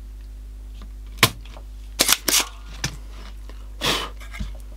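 Spring-loaded desoldering pump firing with a sharp snap about a second in. A cluster of clicks and knocks follows as the radio's circuit board is handled, with a steady low mains hum underneath.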